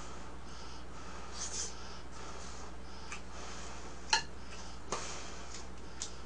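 Someone eating mung bean porridge with a spoon: soft breathing and mouth sounds over a steady low hum, with a sharp spoon click a little past four seconds in and two fainter clicks after it.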